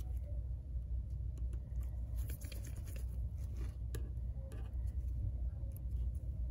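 Faint small clicks and scratchy scrapes of a precision screwdriver and gloved fingers working screws and a metal bracket inside an iPhone, over a steady low hum.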